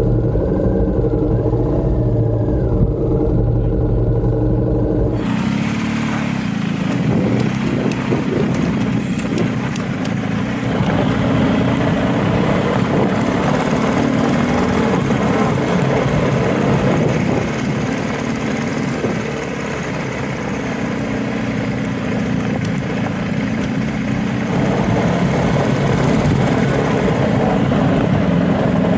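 BMW R1250GS boxer-twin engine running steadily while riding, heard from a camera mounted on the bike. About five seconds in, the sound cuts abruptly to a rougher mix of motorcycle engine and road noise, riding slowly over a bumpy dirt track.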